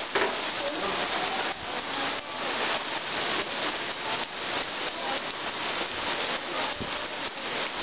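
Steady rain falling on wet paving stones and a cobblestone street, a dense even hiss with no let-up.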